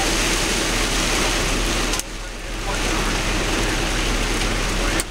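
Steady rush of rain, with some hail, beating on a vehicle, heard from inside, with the vehicle running underneath. It drops off sharply about two seconds in and builds back within a second, then dips briefly again near the end.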